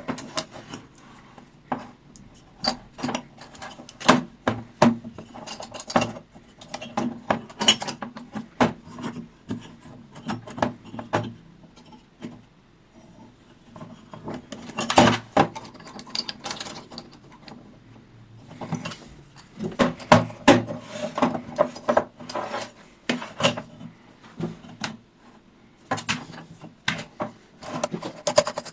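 Hard parts of a bicycle pump being handled: irregular clicks, knocks and rubbing in clusters, with short quieter pauses around the middle and near the end.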